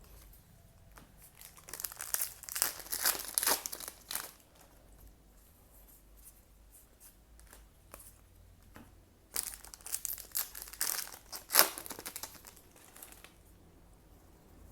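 Foil trading-card booster pack wrappers being torn open and crinkled by hand, in two spells of rustling, about two seconds in and again from about nine to thirteen seconds, with one sharp crackle near the end of the second spell.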